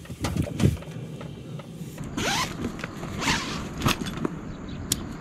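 A nylon SUP carry bag rustling and swishing in short strokes as an inflatable paddle board is pulled out of it, after a few soft knocks in the first two seconds.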